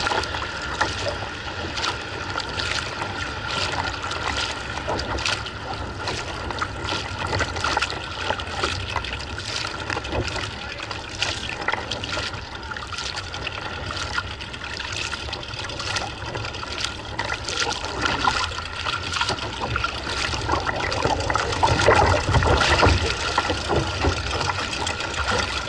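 Water splashing and trickling around a kayak as it is paddled: many small irregular splashes and drips over a steady wash.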